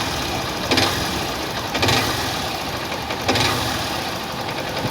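Honda CG 160 Start single-cylinder engine running and revved in short blips three times, with a knocking noise when it accelerates that the mechanic suspects is piston skirt slap or play in the connecting rod.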